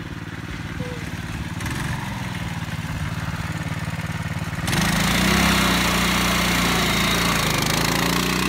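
Kids' ATV's small engine running as the quad drives across grass, its pitch wavering with the throttle. It gets suddenly louder and harsher about halfway through as it passes close by, and stays loud as it pulls away.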